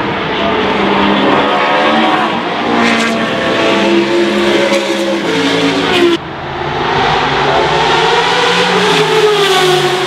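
Race car engines at full throttle on the circuit, the note climbing, dropping and climbing again through gear changes. About six seconds in the sound cuts off abruptly, and another race car's engine rises and falls as it passes.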